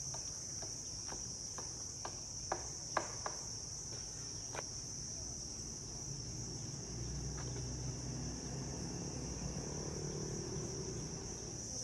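A steady, high-pitched insect chorus of crickets or cicadas, with a handful of sharp clicks or taps a couple of seconds in.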